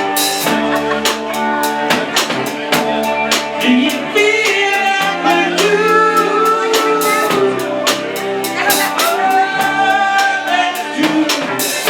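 Live rock band playing, with a drum kit keeping a steady beat, a bass line underneath and long held sung notes over the top.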